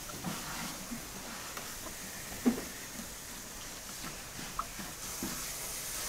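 A knife cutting through swordfish loin on a plastic tray, with a soft knock about two and a half seconds in and a small click later, over a steady faint hiss.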